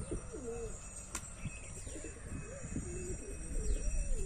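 Domestic pigeons cooing, with repeated wavering calls that overlap one another. A single click is heard about a second in.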